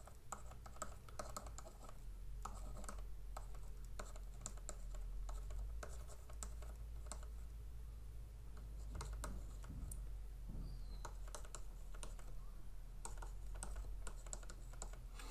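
Faint, irregular clicking of keys being tapped, mixed with light stylus scratching on a pen tablet, over a low steady hum.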